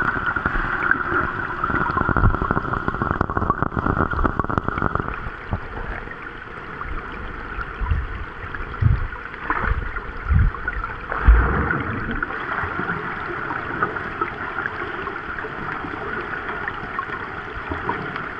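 Rain falling on lake water and water sloshing close by, with a steady hiss and a few low, heavy splashing thumps in the middle.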